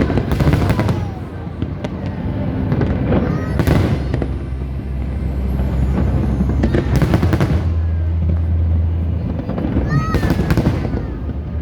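Aerial fireworks display: a string of loud shell bangs, about four big ones a few seconds apart, over continuous crackling and a low rumble.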